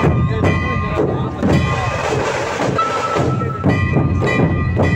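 Dhol-tasha troupe playing: large barrel-shaped dhol drums beaten in a fast, steady rhythm, with a few held high tones over the drumming.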